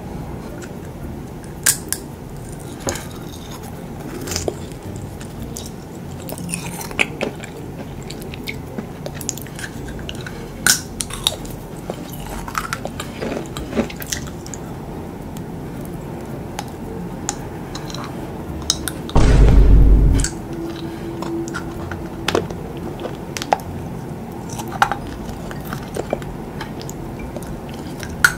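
Close-up mouth sounds of biting and chewing edible painted fake fingernails: scattered crisp clicks and crunches. About two-thirds of the way through comes a loud low thump lasting about a second.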